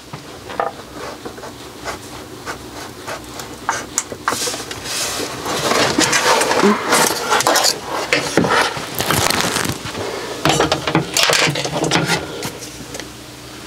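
Irregular scratching and scraping strokes of a knife being drawn over a rubbery cupboard floor mat, marking where it is to be cut to size.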